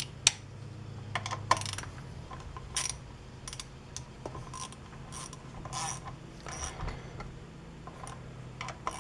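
Hand tool working on a chainsaw's carburetor and plastic air box, making short, irregular metal-on-plastic clicks and scrapes. The loudest clicks come in the first couple of seconds.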